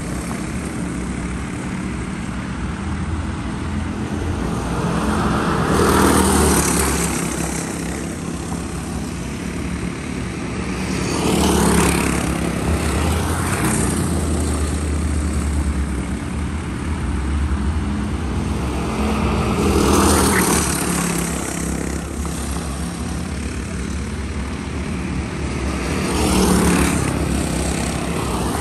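Racing karts with small single-cylinder Predator engines running laps, giving a steady engine drone. The sound swells four times as karts pass close by and then falls away.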